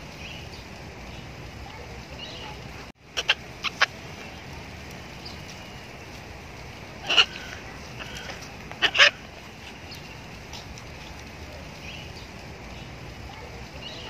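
Blue-and-gold macaw giving short harsh squawks: a quick run of four about three seconds in, a louder single squawk a few seconds later, and a close pair of loud squawks about nine seconds in.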